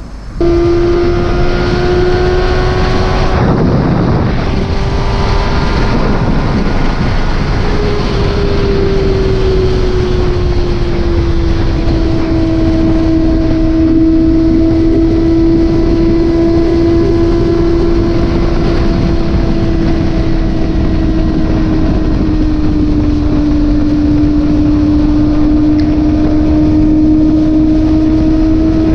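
Motorcycle engine running steadily at cruising speed, its drone holding one pitch over a constant rush of road noise. The engine note sinks a little about eight seconds in.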